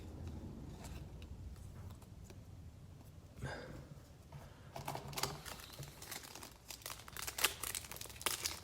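Faint rustling and small clicks of a trading-card pack's wrapper and cards being handled. It is mostly quiet at first, with a brief rustle about three and a half seconds in, and the handling grows busier through the second half.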